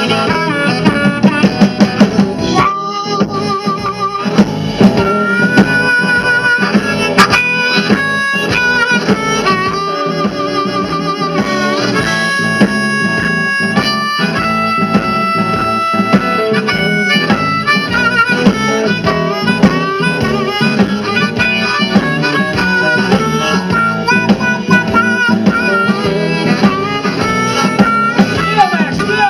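Amplified blues harmonica solo, cupped against a vocal microphone, playing long held notes over a live band of electric guitar, bass guitar and drums.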